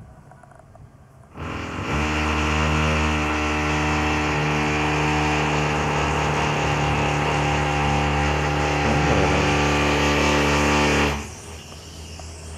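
Norwegian Forest Cat purring loudly and steadily close to the microphone, starting about a second and a half in and stopping suddenly near the end.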